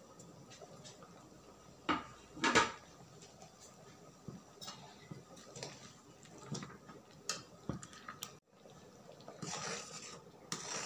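A flat spatula stirring thick tomato puree in a metal kadai, scraping and knocking against the pan now and then. The loudest knock comes about two and a half seconds in.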